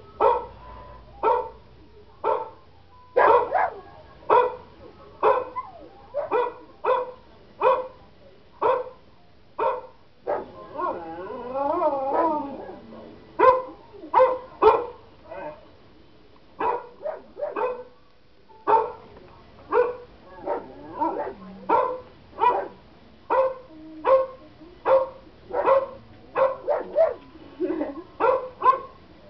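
German Shepherd dog barking over and over, about one to two sharp barks a second, broken about ten seconds in by a couple of seconds of wavering, howl-like crying, then barking again. It is barking in response to recorded dog-barking sounds.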